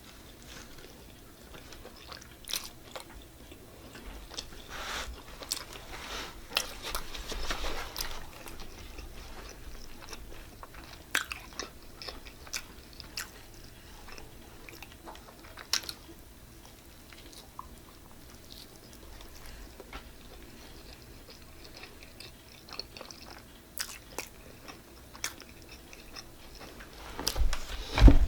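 A person chewing and biting pizza close to the microphone: wet chewing with scattered crunchy clicks of the crust. Near the end there is one much louder low thud.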